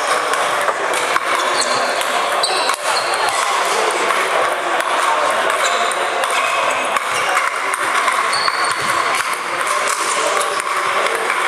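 Busy sports-hall ambience: a steady wash of voices and movement, with scattered sharp clicks of celluloid ping-pong balls struck by sandpaper bats and bouncing on tables.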